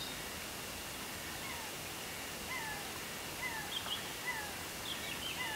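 Steady rushing noise of a river and rain. Over it comes a short, falling animal call, repeated about once a second, with a few higher chirps near the end.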